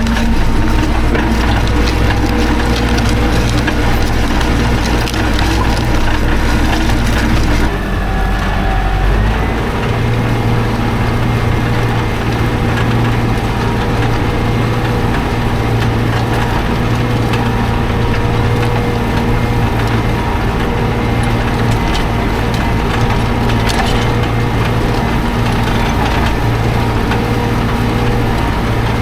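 Tractor engine running steadily under load while working a field, with a rough clattering noise over it that drops away about eight seconds in, leaving the engine's steady hum.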